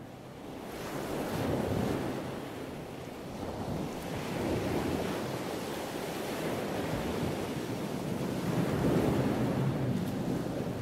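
Sound of sea surf: a steady wash of waves that swells and ebbs slowly every few seconds.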